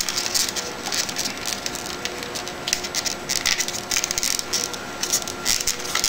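Wires and parts being handled: a run of light clicks and rustles, over a faint steady hum.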